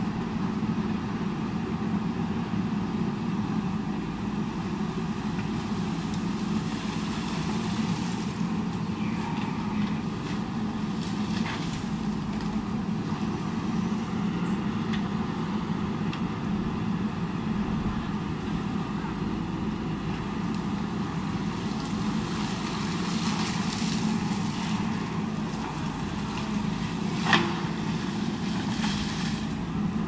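JCB backhoe loader's diesel engine running steadily as the machine digs, with one sharp knock near the end.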